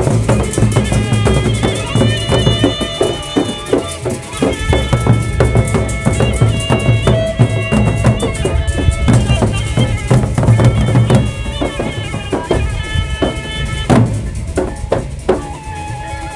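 Sasak gendang beleq ensemble from Lombok playing: large barrel drums beaten in dense, fast strokes, with ringing metal percussion tones sounding over them.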